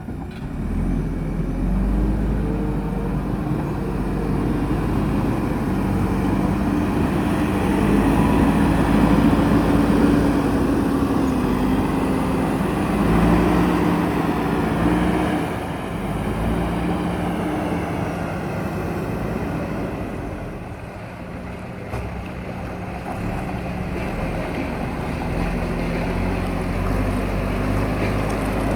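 Heavy diesel engine of a construction machine at work, its note rising and falling as it is throttled up under load and eased back, with one sharp knock about three-quarters of the way through.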